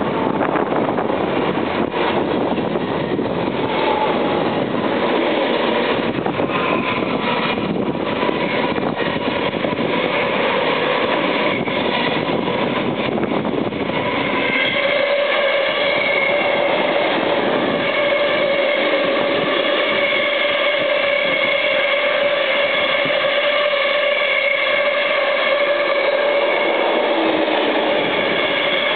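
VIRM double-deck electric intercity train passing close at speed, a rushing rumble with rapid clicks from the wheels. From about halfway through, a long ore train of hopper wagons rolls past with a steady whine over the wheel noise.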